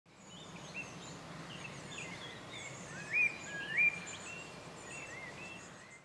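Several small birds singing, with many short whistled notes and two louder upswept whistles a little after three seconds and near four seconds, over a faint steady low background noise.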